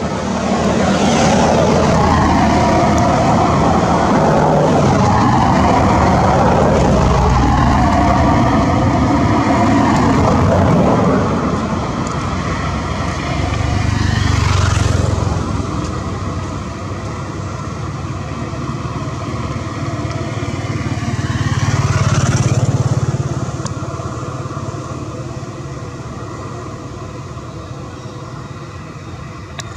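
Motor vehicle traffic: engines running close by for the first several seconds, then two vehicles passing, one about halfway through and another about three-quarters of the way in, each swelling and fading.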